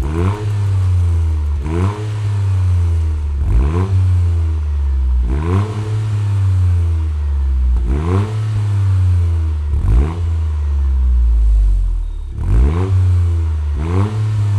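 Toyota GR Yaris Gen II's turbocharged 1.6-litre three-cylinder engine revved through a Scorpion GPF-back stainless exhaust. It gives a quick throttle blip about every two seconds, each rev rising then dropping back to idle.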